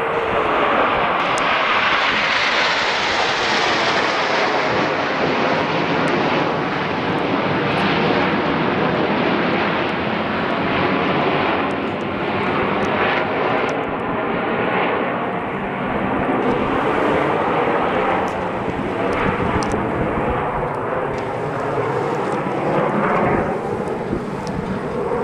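Loud, steady jet noise from the Red Arrows' formation of nine BAE Hawk T1 jets flying over, with a slow swirling, phasing quality. The hiss at the top of the sound eases after the first few seconds as the jets pull away.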